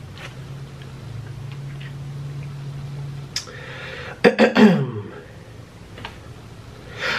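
A faint steady low hum for about three seconds, then, about four seconds in, a few mouth clicks and a short wordless vocal sound from a man that falls in pitch, like a throat noise.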